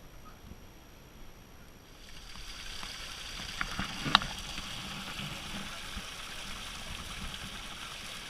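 Rushing water of a waterfall comes in about two seconds in and then holds as a steady hiss, with one sharp click about four seconds in.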